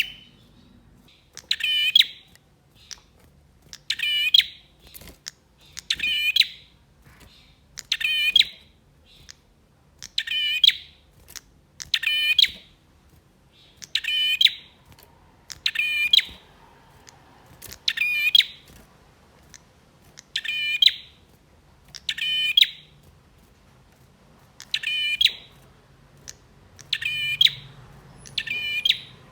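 Male prinia (prenjak) singing: a short, loud, high trilled phrase repeated about every two seconds.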